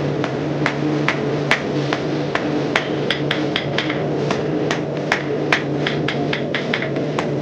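Forging hammer striking hot mild steel round bar on an anvil in a steady run of sharp blows, about two to three a second, over a steady low hum.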